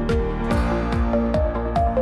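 Background electronic music with a steady, fast beat and a synth melody.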